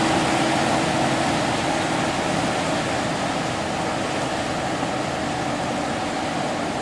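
Ferry under way: a steady engine drone with a constant hum, mixed with the rush of churning wake water, heard on board near the stern.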